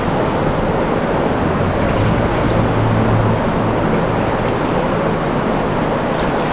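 Steady rushing of a shallow mountain river's current.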